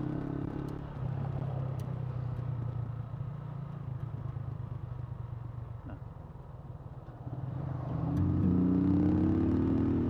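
Yamaha SZ motorcycle engine running under way, heard from the rider's action camera. It eases off in the middle, then rises in pitch as it accelerates near the end.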